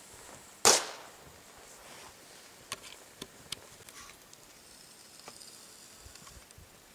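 A firecracker going off with one sharp bang inside a closed laptop, less than a second in. A few faint ticks follow about two to three seconds later.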